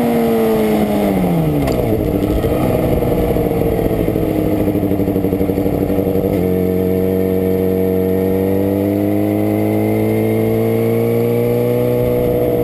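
Superbike engine heard from a camera mounted on the bike, its note falling as the bike slows down over the first two seconds. From about six seconds in it settles into a steady, even low-revs note as the bike rolls slowly.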